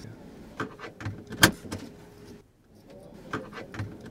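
Clicks and knocks of someone handling controls and fittings inside a car's cabin, with one sharp click about a second and a half in, over a faint steady hum.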